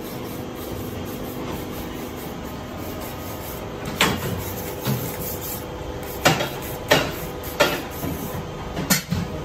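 A fly ash brick making machine with a rotating mould table runs with a steady hum. From about four seconds in, it gives about five or six sharp metallic clanks.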